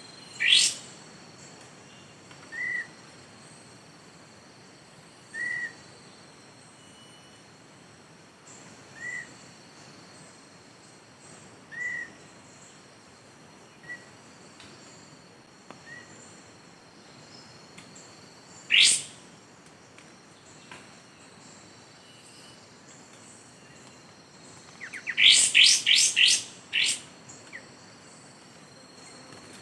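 Small songbird calls: a soft chirp about every three seconds and two loud, sharp down-slurred whistles, then a quick run of four or five down-slurred notes near the end. Under them runs a steady high insect buzz.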